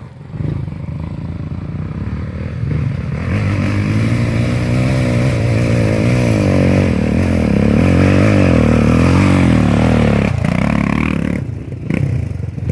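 Trail motorcycle's four-stroke single-cylinder engine running under load, the revs rising and falling repeatedly as the throttle is worked. It eases off briefly near the end.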